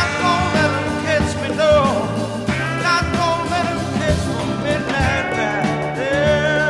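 Background rock and roll song: a singer's voice over a steady beat and bass.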